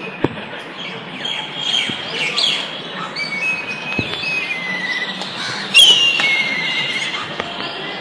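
Several birds chirping and calling in the trees, with short high chirps and whistled notes sliding in pitch. The loudest call, about six seconds in, slides down and is followed by a wavering, trilled note.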